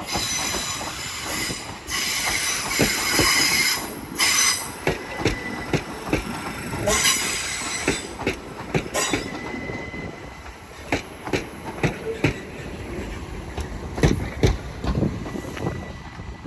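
Class 387 electric multiple unit arriving: its wheels squeal high and shrill for the first several seconds, then fade into a string of sharp clicks and knocks from the wheels over the rail joints and points.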